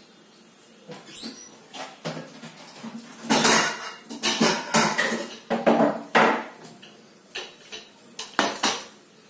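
Kitchen dishes and metal utensils clattering and clinking: a run of irregular knocks that starts about a second in, busiest and loudest in the middle, then a few last clinks near the end.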